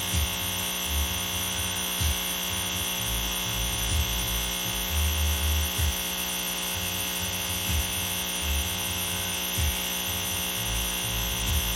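Electric air pump running with a steady electrical hum, pushing air into sealed buckets through check valves. Irregular low thumps come and go under it.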